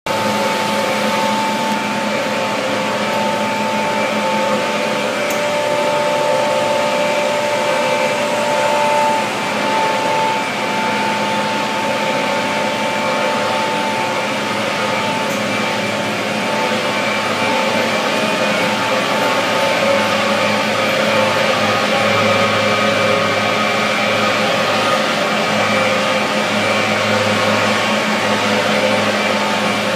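Industrial chillers running in a plant room: a loud, steady machinery drone with several steady whining tones over a broad hum.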